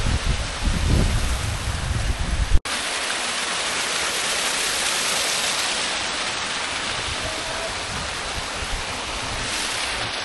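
Steady rushing hiss of a rocky stream cascading down small falls. A low rumble on the microphone in the first two or three seconds stops abruptly.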